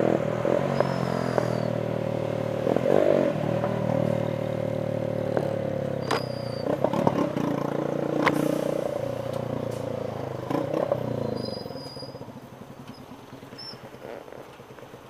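Honda motorcycle's engine running under the rider as the bike moves through traffic, with a few sharp clicks partway through. About eleven seconds in the engine note drops away and it goes much quieter as the bike slows to a stop.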